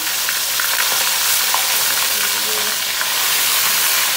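Tulingan (bullet tuna) frying in hot oil in a pan: a steady sizzle with scattered small pops and crackles.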